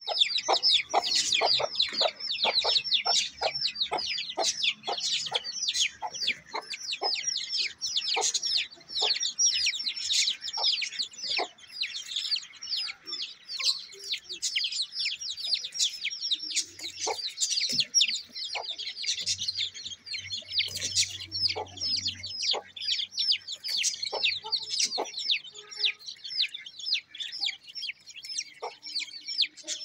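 Aseel chick peeping rapidly and without pause: short high calls that fall in pitch, several a second.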